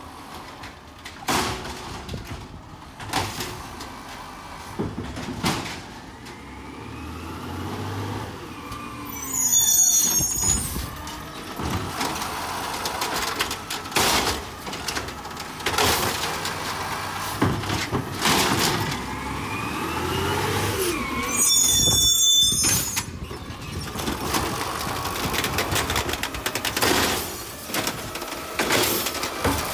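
Automated side-loader garbage truck pulling up to the curbside carts with its diesel engine running, brakes squealing, and two loud air-brake hisses about a third of the way in and again about two-thirds in.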